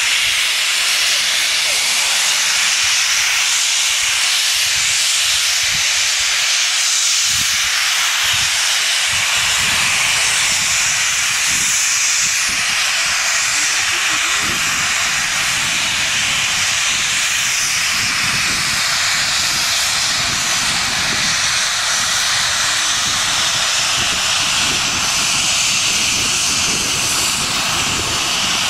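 Steam locomotive venting steam: a loud, steady hiss that carries on unbroken.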